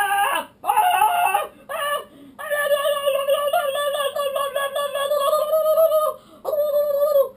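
A boy's voice making sing-song nonsense sounds: a few short sung syllables, then one long wavering held note for about four seconds, and a shorter held note near the end.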